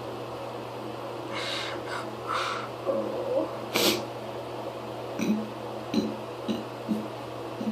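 A person breathing and making small throat and mouth sounds between attempts at loud burps: two soft breaths, a sharp sniff-like sound, then a few short, quiet throat sounds, over a steady low hum.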